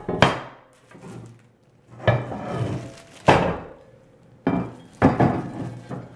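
Heavy cast iron grate sections knocking and clanking together as a Craycort cast iron griddle quarter is set into and shifted around in the cast iron grate ring, about five sharp knocks at irregular intervals. The piece is being tried for fit and does not fit.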